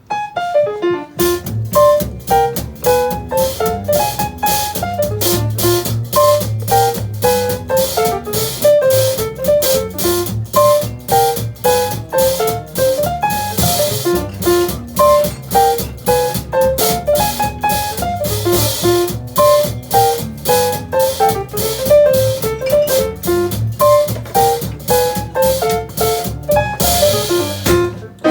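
Small jazz band playing: a drum kit keeps a steady beat while a piano plays a running melody over a low bass line, with cymbal washes now and then.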